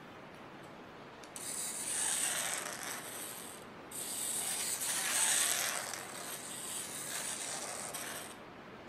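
Leaf sprigs rustling and crackling as a hand handles them and presses them onto watercolor paper, in two long stretches with a short break about four seconds in.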